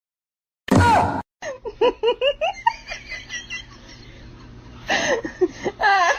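Laughter in quick runs of short repeated bursts, fading in the middle and picking up again near the end, after a short loud vocal burst just under a second in.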